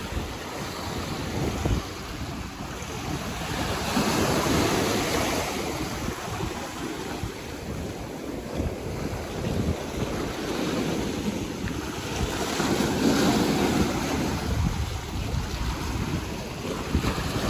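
Ocean surf washing onto the beach, swelling louder about four seconds in and again about two-thirds through, with wind buffeting the microphone.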